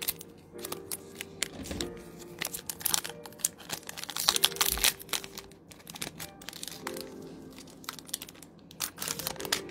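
Foil wrapper of a Pokémon trading-card booster pack crinkling and tearing as it is pulled open by hand, in a run of sharp crackles and rustles, on a pack that is hard to open. Faint background music plays beneath.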